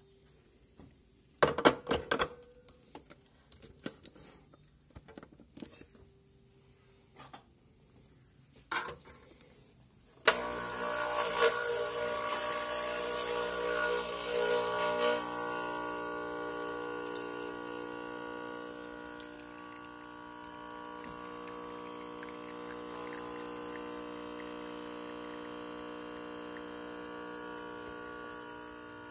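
A few handling clicks and knocks, then about ten seconds in the 1981 Simac espresso machine's electric pump switches on suddenly and pushes water through the group to brew a shot. It buzzes under a rushing hiss for the first few seconds, then settles into a steady hum.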